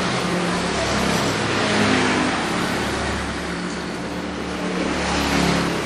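Road traffic going past close by: a steady engine drone with road noise that swells and eases as vehicles pass.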